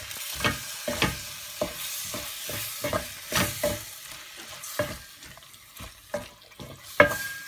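A wooden spoon stirring thick tomato purée into frying onion and spice masala in a stainless steel pot. It makes irregular scrapes and knocks against the pan about once or twice a second over a steady sizzle.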